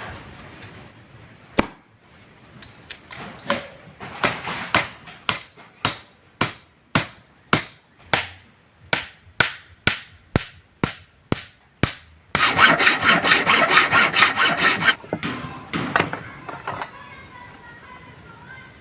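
Hammer blows on wood, a steady run of sharp strikes about two a second, followed by about three seconds of dense rasping noise that is the loudest part.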